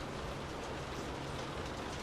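Steady rain heard from indoors, an even hiss of rain on a surface with faint scattered drop ticks. A faint steady low hum lies underneath.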